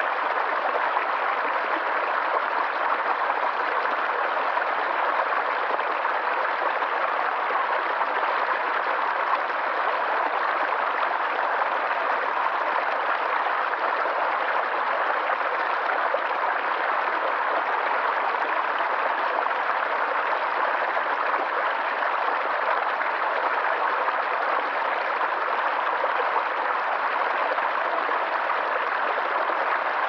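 Small stream rushing over stones in a little cascade: a steady, unbroken babble of running water.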